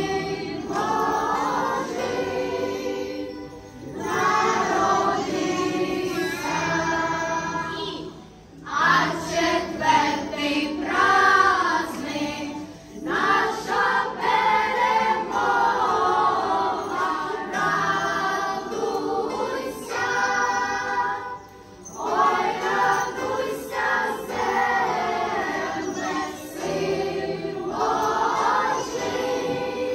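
A church choir of mixed voices singing a Ukrainian Christmas carol (koliadka) in long phrases, with short breaks between them.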